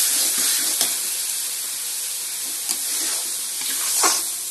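Chopped fenugreek, spinach and bathua greens sizzling in ghee in a metal wok, stirred with a steel spoon that scrapes and knocks against the pan a few times.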